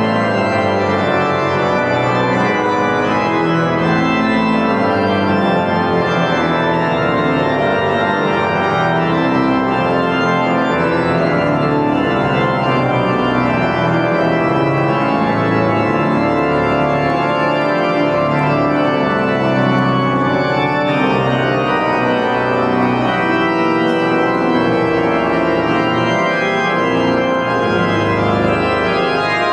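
The large main pipe organ of Königsberg Cathedral playing steadily and loudly, many notes sounding together across bass and treble in full chords.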